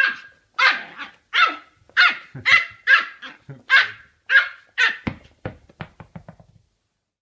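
Dog barking repeatedly: about ten sharp barks, roughly two a second. These give way to a run of quicker, fainter barks that stop about six and a half seconds in.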